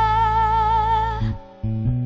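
Music for a dance: a long held note with vibrato ends a little over a second in, the music drops away briefly, then low notes start again near the end.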